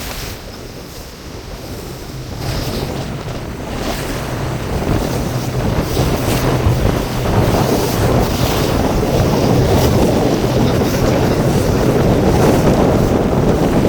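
Honda 60 hp four-stroke outboard motor running under way, growing louder over the first several seconds and then holding steady. Wind buffets the microphone and water splashes against the hull in choppy seas.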